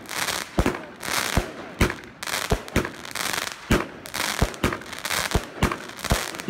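A 42-shot consumer fireworks cake (Evolution Fireworks 'Ice Queen') firing: a steady run of sharp bangs, about two a second, with each silver titanium chrysanthemum star breaking into crackling that fills the gaps between shots.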